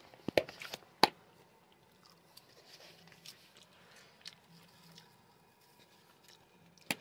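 Quiet handling of a plastic popcorn-seasoning shaker being shaken over popcorn on a paper plate: a few sharp clicks in the first second, then faint scattered taps and ticks.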